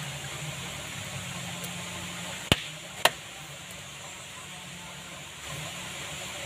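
Two sharp knocks about half a second apart: a large knife chopping through a giant African catfish onto a cutting block, over a steady low hum.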